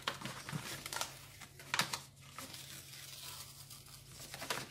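A sheet of glossy printed paper rustling and crinkling as hands fold and crease it, with a few sharper crackles in the first two seconds, then softer handling.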